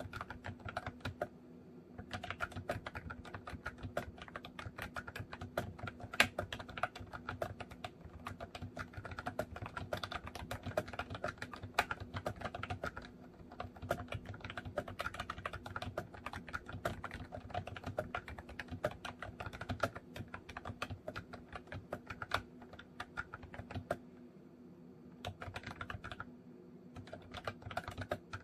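Continuous typing on a MOFii Retro Style Candy keyboard: a dense, rapid run of key clacks with two short pauses, one near the start and one near the end.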